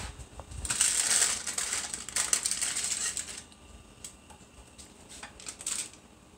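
Pancake-batter-coated donut hole sizzling and crackling in hot frying oil for about three seconds, then dropping to faint scattered crackles.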